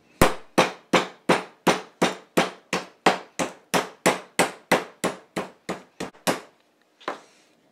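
Meat mallet pounding a thick pork chop on a cutting mat, tenderizing it by breaking down the muscle fibres. Steady, evenly spaced blows come about three a second and stop about six seconds in.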